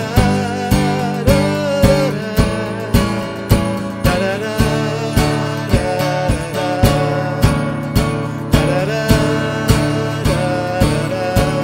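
Acoustic guitar strummed in a steady rhythm, about two strokes a second, with a man singing a melody over it.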